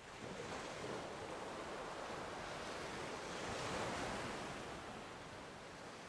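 Rushing sea noise, like surf, with no distinct events. It starts abruptly, swells to a peak about four seconds in, then eases off.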